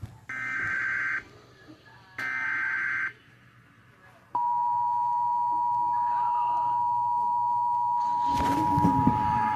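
Emergency Alert System transmission: the last two bursts of the SAME digital header, each a harsh buzzing data screech about a second long with a second's gap between them. After a short pause, the EAS two-tone attention signal (853 and 960 Hz together) starts about four seconds in and holds steady.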